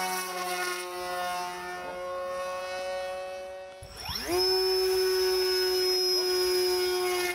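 Propeller motor of a 1.2 m flying-wing UAV running at a steady high whine as the plane is held up for an automatic hand-launched takeoff. About four seconds in the sound breaks off and the motor spins up again from low, rising quickly to a steady, louder whine.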